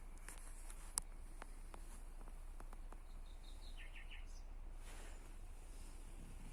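Quiet outdoor ambience with a few short, high bird chirps about three to four seconds in, and a single sharp click about a second in.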